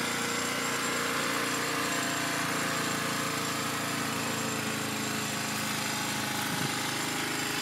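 1985 Honda Elite 150 Deluxe scooter's single-cylinder four-stroke engine idling steadily.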